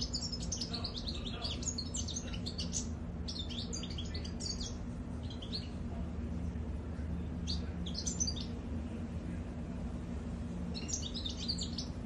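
European goldfinch singing in quick runs of short, high twittering notes, broken by pauses in the middle, over a steady low hum.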